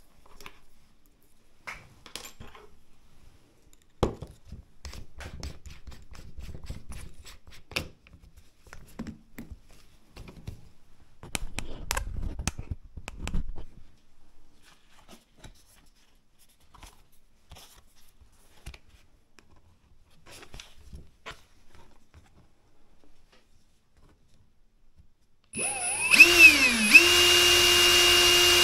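Light clicks and knocks of parts and tools being handled. Near the end an electric power tool's motor starts, dips briefly in pitch and then runs on steadily and loudly.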